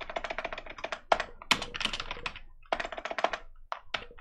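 Typing on a computer keyboard: quick runs of key clicks that stop and start several times.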